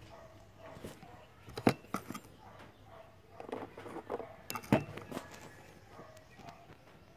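A few sharp clicks and knocks with soft rubbing between them: a stone being handled right up against the microphone. The loudest clicks come a little under two seconds in and again just under five seconds in.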